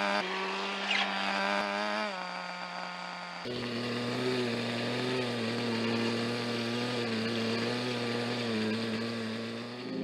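Small glow-fuel engine of a Kyosho TGX Mk.1 nitro RC car running at a steady speed. About three and a half seconds in, its note drops lower and it runs on at that steadier, lower pitch.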